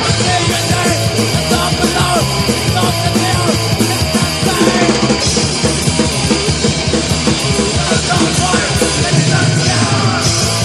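Loud punk rock recording by a full band, dense and driving without a break.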